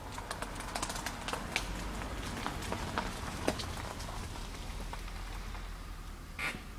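Leaves and stems of tomato plants rustling and crackling close to the microphone: a dense run of small irregular clicks in the first few seconds, then sparser ones, with one louder rustle near the end.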